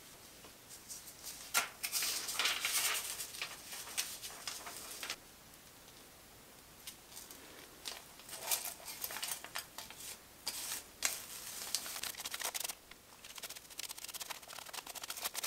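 Aluminium hair foil crinkling and rustling in gloved hands while a tint brush scrapes bleach onto the hair laid on it. It comes in three bouts of a few seconds each, with short pauses between.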